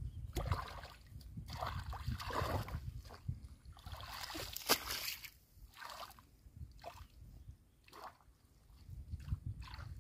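Hands splashing and sloshing in shallow muddy water, in irregular bursts, with a single sharp click a little before the middle.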